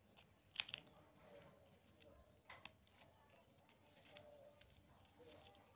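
Nail nippers snipping a thickened toenail, heard as faint sharp clicks: a quick pair about half a second in, the loudest, and another pair about two and a half seconds in, with near silence between.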